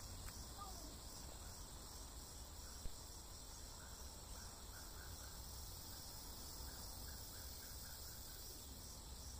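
Faint tropical forest ambience of insects droning steadily at a high pitch, with two short runs of quick chirps, one about four seconds in and one near the end. A single soft tap about three seconds in.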